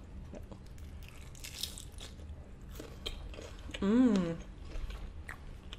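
Close-up chewing of a bite of fried birria queso taco, with small crunches and wet mouth clicks. About four seconds in comes a short closed-mouth "mmm" of approval, rising then falling in pitch.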